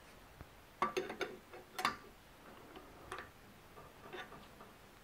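Light metallic clicks and clinks of a 3/4-inch wrench fitting onto and turning off a rifle's existing muzzle device: a quick cluster about a second in, then single ticks every second or so.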